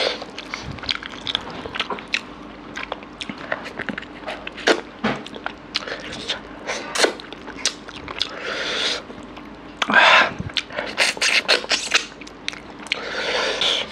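Close-up eating sounds of mutton curry and rice being eaten by hand: wet chewing, smacking and squelching, with many short wet clicks. A few louder breathy bursts come about two-thirds of the way through and near the end.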